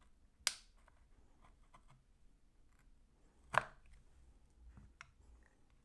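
Screwdrivers prying at the seam of a Seagate One Touch external hard drive's case, giving two sharp clicks as the case snaps against the tools, one about half a second in and a louder one about three and a half seconds in, with faint ticks between.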